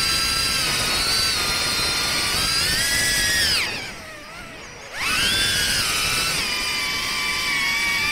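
Small FPV quadcopter's brushless motors whining, with several high pitches together. About three and a half seconds in the pitch falls sharply and the sound nearly dies away for about a second as the throttle is cut during a roll. It then climbs back and runs steadily.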